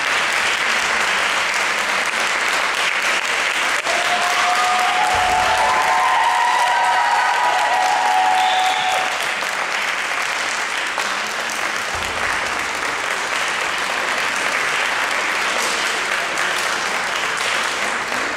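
Audience applauding, with a few voices cheering through the middle. The applause eases a little after about nine seconds.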